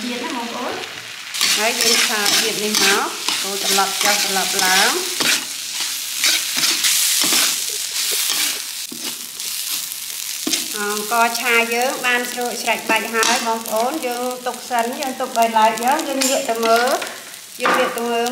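Rice with garlic sizzling in oil in a metal wok as a metal spatula scrapes and turns it over and over. In the second half the spatula's scrapes against the wok turn squeaky, giving short squealing tones.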